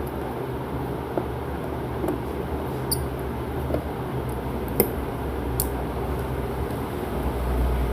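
A few small sharp clicks and light scrapes of a screwdriver and tiny screws being worked on a phone's frame, over a steady low hum that grows louder near the end.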